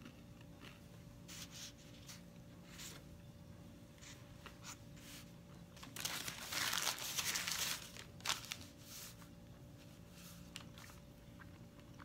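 A man chewing a bite of microwaved chicken burrito whose flour tortilla has gone hard: scattered soft crunches and crackles, with a louder crackling stretch of about two seconds past the middle.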